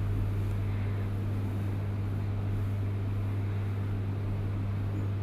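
Steady low hum with a light hiss behind it, unchanging throughout.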